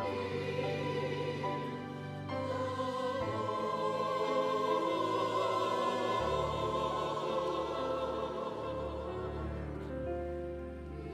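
A choir singing a sacred piece with vibrato, over long sustained low accompanying notes.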